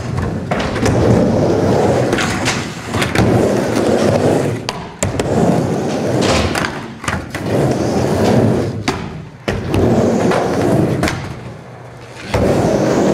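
Skateboard wheels rolling on a wooden mini ramp, a rumble that swells and fades with each pass across the ramp, broken by sharp clacks and knocks of the board and trucks on the ramp and its metal coping. The rumble dies down briefly near the end before picking up again.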